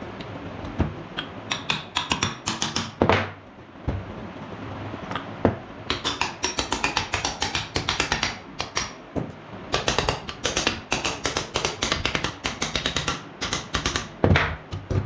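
Quick runs of sharp clicks and light knocks, with several louder single knocks among them.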